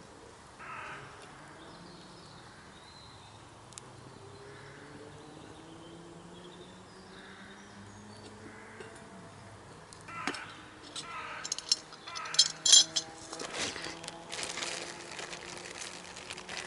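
Metal cook pot being set down and its metal lid taken off: a run of sharp clinks and knocks starting about ten seconds in, the loudest a ringing metal clink near the middle of the run.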